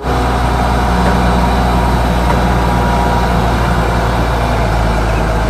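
Diesel engine of a Grove RT530E rough-terrain crane running steadily and loud, an even low drone that holds the same pitch throughout.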